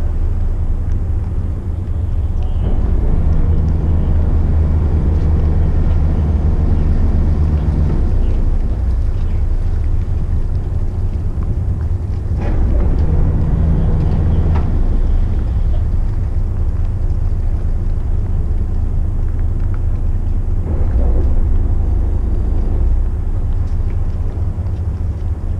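A McKinna 65 motor yacht's inboard diesel engines running at low speed during close manoeuvring: a steady low rumble that twice grows louder for a few seconds, with a low drone over it.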